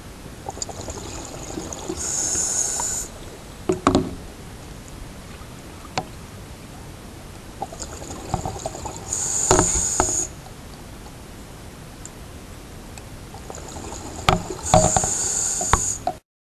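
Underwater scuba breathing through a regulator: three breaths about six seconds apart, each a loud hissing, bubbling rush, with scattered small clicks between them.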